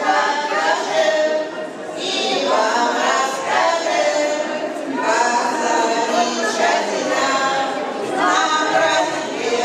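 A small group of older women singing a song together without accompaniment, one of them into a microphone, in phrases of a few seconds with short breaths between.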